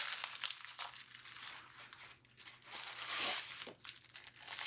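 Packaging crinkling and rustling as it is handled during unboxing, with small clicks. It is loudest at the start, dies down, and swells again about three seconds in.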